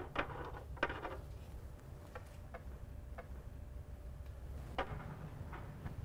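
Small glass nail polish bottles being picked up and set down on a shelf: a handful of light, irregularly spaced clicks over a low steady room hum.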